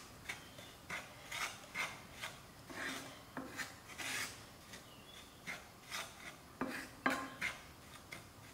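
Wooden spoon scraping and stirring dry semolina around a hot frying pan, in repeated rasping strokes about two a second, as the semolina is dry-roasted toward golden brown.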